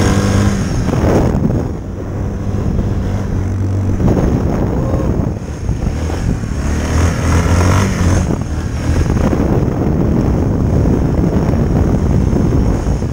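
Yamaha Kodiak 450 ATV's single-cylinder engine running at varying speed while riding on ice, with wind buffeting the microphone.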